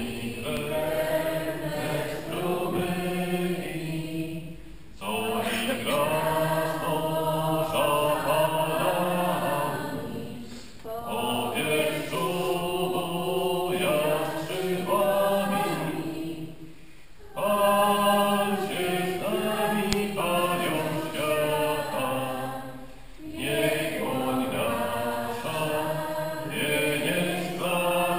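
Congregation singing a hymn during mass, phrase after phrase of about six seconds each with short breaks for breath between them.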